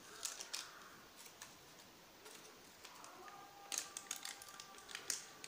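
Aluminium foil crinkling as it is handled and peeled off a cake tin: faint, scattered crisp crackles, one cluster at the start and another about four seconds in.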